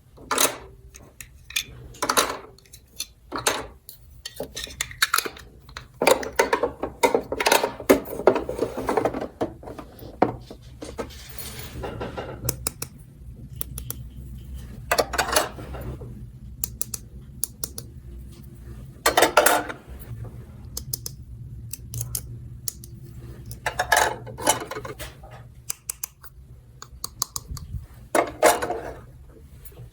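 Small plastic toy pieces clinking and clattering as they are handled, a run of irregular knocks and short rattles with a few busier stretches.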